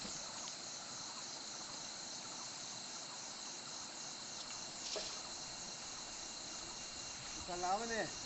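A steady, high, pulsing insect chorus from the riverside forest. A person's voice calls out briefly near the end.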